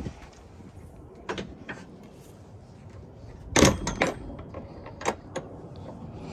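Knocks and scrapes of things being moved by hand, several separate strokes with the loudest pair about three and a half to four seconds in.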